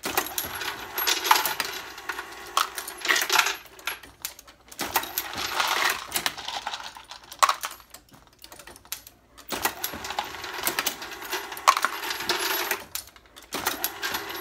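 Brass 9mm cases clinking and clattering as they tumble through a Hornady case feeder and a Hornady Lock-N-Load AP progressive reloading press being cycled by hand. The clatter comes in stretches of a few seconds with short quieter gaps between.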